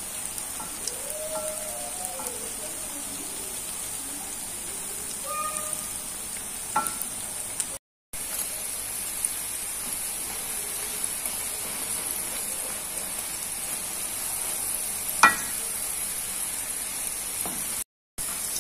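Cireng (tapioca fritters) deep-frying in hot oil on a moderate flame, a steady sizzle, with a few light knocks as a wooden spatula turns them in the pan.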